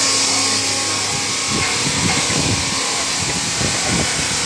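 Marble-processing machines running: a steady, loud machine noise with a high hiss and a constant hum, with some low knocks and clatter in the middle.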